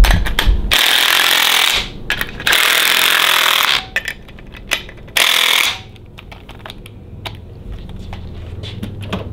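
Cordless impact wrench hammering in three bursts, the first two about a second long and the last about half a second, running bolts down into a motorcycle handlebar riser assembly. Light clicks and handling of parts follow.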